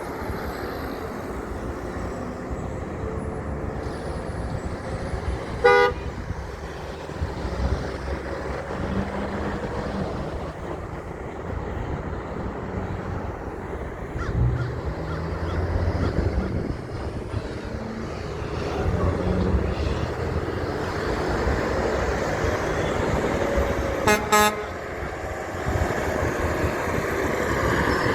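Truck horn sounding a single short blast about six seconds in and two quick blasts near the end, over the steady noise of passing truck engines and traffic.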